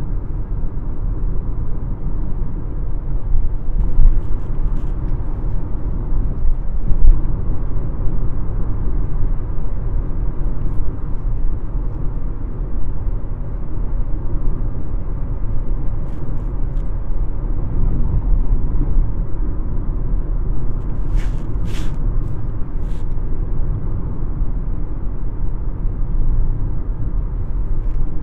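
Steady low rumble of road and engine noise inside the cabin of a moving Nissan sedan, with a few faint clicks about three-quarters of the way through.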